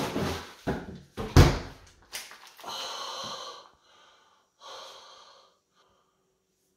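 Freezer drawer rummaged and pushed shut with a heavy thud about a second and a half in, then two long, hissing breaths from a man a second or so apart.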